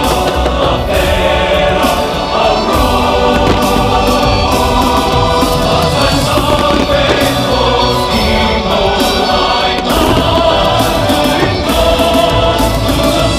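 Loud choral music: a choir singing with sustained, overlapping voices.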